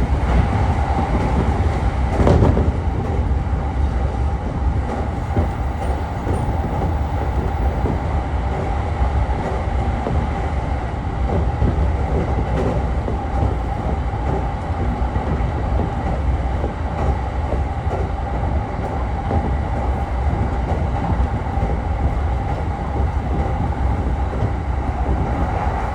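Running noise heard inside a JR East electric commuter train car at speed: a steady low rumble of wheels on rail with a constant hum, and a brief louder knock about two seconds in.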